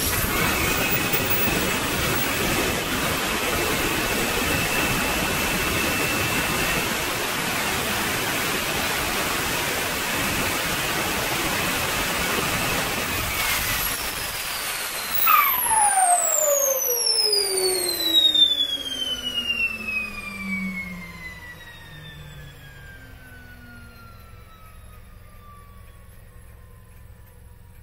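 Wren 54 model jet turbine running with a steady rushing roar and whine, then shut down about fifteen seconds in. Its whine falls steadily in pitch for the next ten seconds or more as the rotor spools down, with uneven loud surges at first. This is a ground run of the freshly serviced, reinstalled turbine, which is working as it should.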